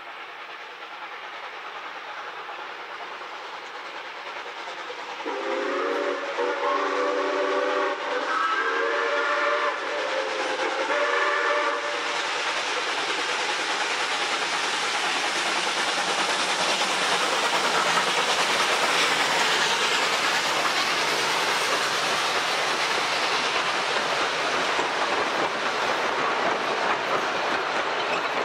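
Steam locomotive approaching and growing louder, then sounding three blasts on its whistle, several notes at once, about five seconds in. It then passes close by hauling heritage passenger carriages, with steady rolling noise and the clickety-clack of wheels over rail joints.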